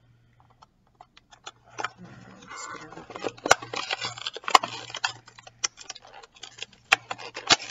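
Fingers and nails picking and scratching at the packing tape on a cardboard card box: a rapid, irregular run of sharp clicks and ticks, with rustling and tearing from about two to five seconds in.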